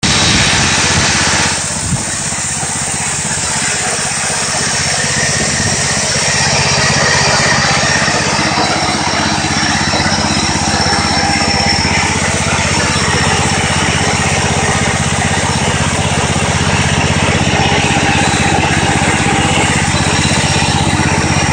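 Powerland 420cc single-cylinder gas engine of a homemade chainsaw mill running on its first run, belt-driving the chainsaw bar. It drops slightly in level with a single click about two seconds in, then runs steadily.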